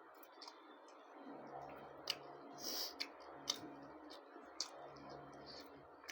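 Eating sounds: soft, scattered wet mouth clicks while chewing a meal, with a brief hiss about two and a half seconds in.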